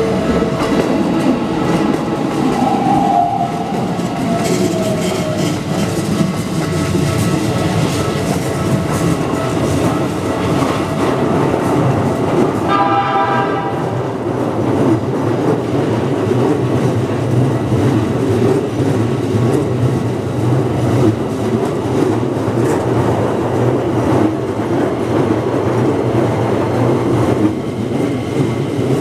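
Keikyu electric trains passing over a level crossing: a steady rumble of wheels on rail. A horn ends just after the start, and a horn blast of about a second comes near the middle.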